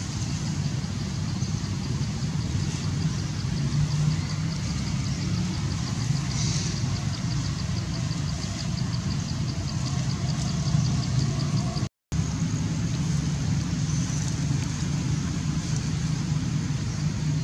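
Steady low engine-like hum, with a fast, even high-pitched ticking above it. The sound cuts out for a moment about twelve seconds in.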